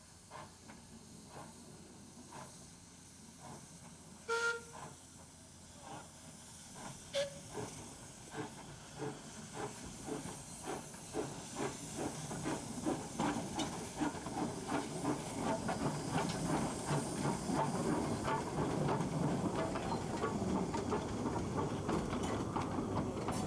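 Two small industrial steam tank locomotives starting away and passing close by, with steam hissing from the cylinders. Their exhaust chuffs come about one a second at first, then quicken and grow louder as they pick up speed. A short steam whistle toot sounds about four seconds in.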